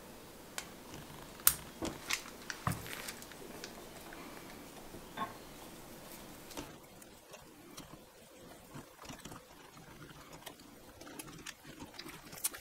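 Handling noise from a condenser microphone being fitted into its shock mount on a boom arm: a string of short plastic-and-metal clicks and knocks, the sharpest about a second and a half in. After that come fainter ticks and rustling, with one more click near the end.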